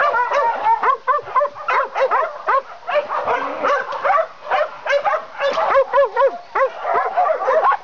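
Several kennelled dogs barking and yipping at once, a rapid, overlapping chorus of short high barks with no pause.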